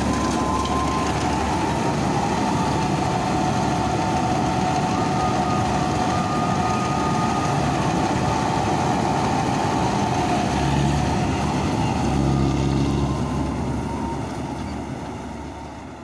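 Avtar 6500 combine harvester running while cutting wheat: a steady mechanical drone with a steady high tone through it. It fades out near the end.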